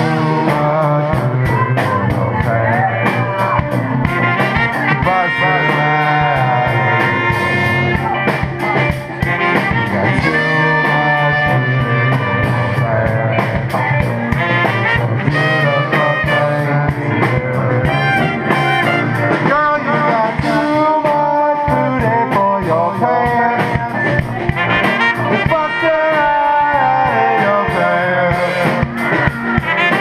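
A small live band playing a song: a man singing lead over a strummed guitar, with trumpet, saxophone and a tuba carrying the low line.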